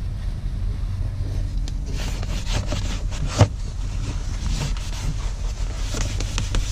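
A rag rubbed in quick scrubbing strokes over textured plastic interior trim, wiping at a drip stain, with one sharp knock about three and a half seconds in, over a steady low hum.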